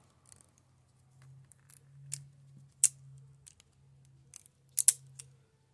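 Hand cutting tool snipping through the outer plastic jacket of a coaxial cable: several sharp snips, the loudest a little under three seconds in and a close pair near five seconds, with soft handling rustle between.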